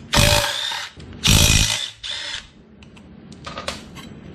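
Impact wrench hammering loose the rear sprocket nuts on a motorcycle wheel: two bursts of about 0.7 s and a shorter, weaker one just after, then a few faint clicks near the end.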